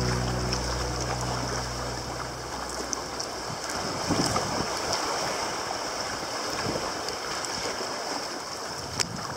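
Sea water washing and splashing around a sea kayak as it is paddled through foaming swell, a steady rushing hiss. Background music fades out over the first couple of seconds.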